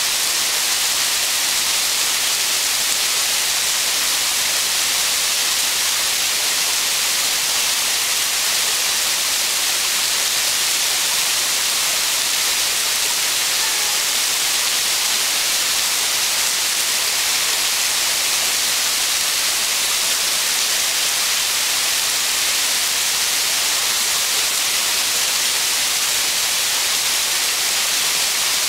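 Waterfall pouring down a rock face: a steady, bright rushing hiss of falling and splashing water, with no change throughout.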